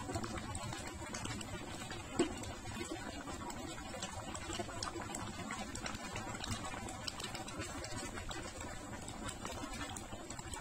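Pot of thick porridge cocoyam simmering on the stove, a steady bubbling with many small pops, as red palm oil goes in. One sharp knock about two seconds in.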